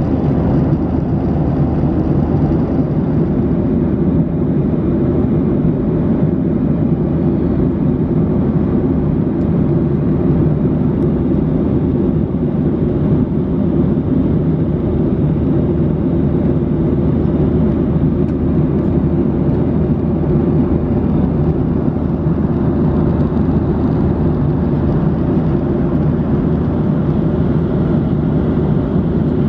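Steady cabin noise of a Boeing 737-800 at cruise, heard from inside the cabin: a deep, even rush of airflow and the CFM56-7B engines, unchanging throughout.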